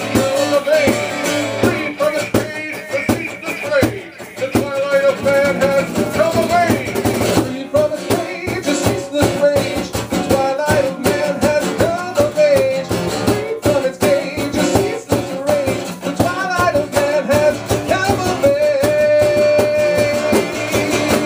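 Live rock band playing an instrumental passage: guitar and drums, with a bending melody line over the top.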